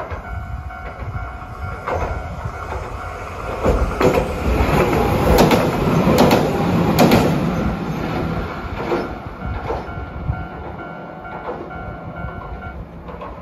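Hiroden 5200-series Green Mover EX articulated low-floor tram crossing a steel girder bridge. Its wheels clack over the rail joints, growing loud about four seconds in, with the sharpest clacks in the middle, then fading as it moves away.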